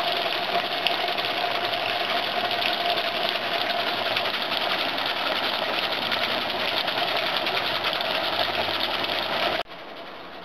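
A jet of water spraying onto the spinning plastic fan blades of a homemade mini hydroelectric generator: a loud, steady spattering hiss with a steady whirring tone running through it. It cuts off suddenly near the end, leaving a much quieter steady hiss.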